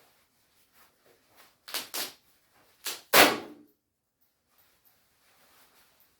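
Shiny nylon shell fabric of a down jacket being ripped in short tearing bursts: two quick rips just under two seconds in, then a short one and a louder, longer tear about three seconds in.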